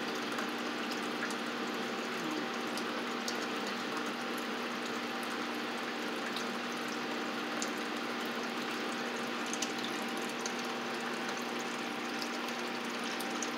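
Aquarium water pump running: a steady rush of moving water over a low, constant electrical hum.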